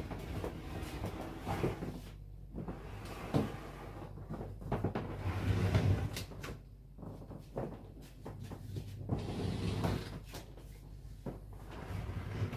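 Irregular knocks, rumbling and scraping as a large American-style fridge freezer is pushed back into position across the floor.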